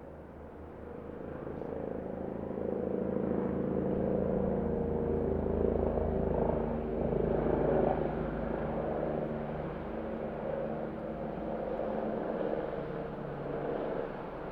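Helicopter passing close by, its rotor beating steadily under a humming tone. It grows louder over the first few seconds, is loudest around the middle, then eases off somewhat.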